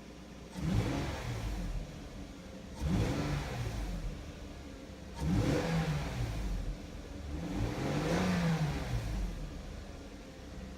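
2001 Lexus GS300's 2JZ-GE straight-six idling and revved four times, each rev rising and falling back to idle over a second or two.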